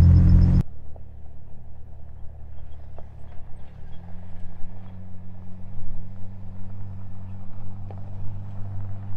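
Jeep engine running as a low, steady hum heard from outside the vehicle, growing louder about four seconds in. At the very start, a brief loud rumble of driving on a dirt trail cuts off suddenly.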